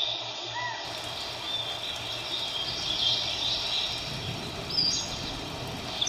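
Forest nature ambience: birds chirping over a steady background hiss, with short high bird calls near the end.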